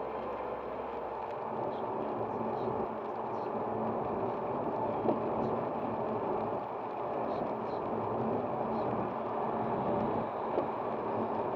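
Steady road and tyre noise of a car driving on a wet motorway in rain, heard from inside the cabin, with faint scattered ticks higher up.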